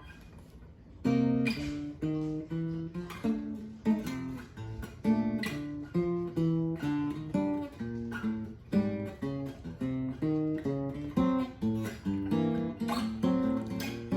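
Acoustic guitar playing a slow piece of plucked notes and strummed chords, starting about a second in, each chord left to ring out.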